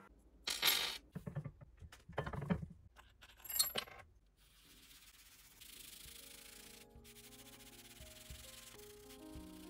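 A few short scraping, handling noises on leather, then a cloth dauber rubbing dye across a leather surface in a steady swishing hiss. Faint music comes in underneath during the second half.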